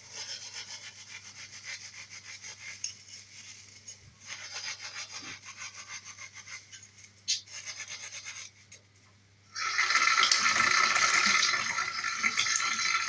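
Soapy steel-wool scouring pad scrubbed hard back and forth over a metal gas-stove part, in fast rhythmic strokes with brief pauses. About ten seconds in, a louder, steady rushing sound takes over.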